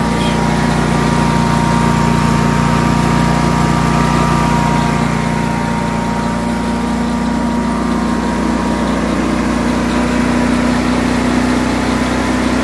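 Bradley commercial mower's engine idling steadily while it warms up, with a thin steady whine above the engine note.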